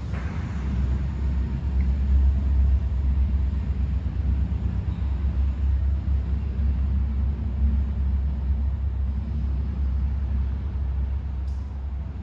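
Steady low rumble that waxes and wanes, with no distinct events.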